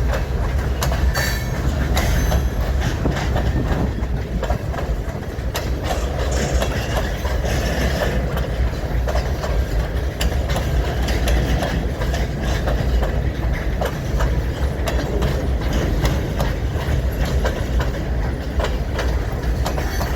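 A freight train rolling past close by: a steady low rumble, with its wheels clicking irregularly over the rail joints.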